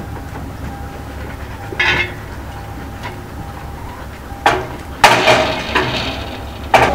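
Metal clanks and rattles of a manually worked railway level-crossing boom barrier being lowered and coming to rest: a clank about two seconds in, then a burst of clattering from about four and a half seconds, the loudest part, and a last sharp clank near the end.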